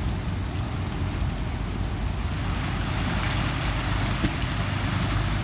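Small water taxi under way, its engine running with a steady low hum under the rush of wind and water. The rushing noise grows louder about halfway through.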